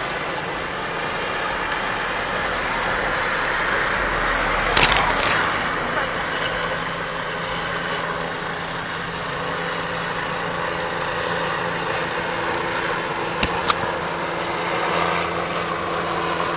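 Steady street traffic noise with a low hum, picked up by a phone mic pressed against skin. A brief scraping crackle comes about five seconds in, and two sharp clicks about thirteen and a half seconds in.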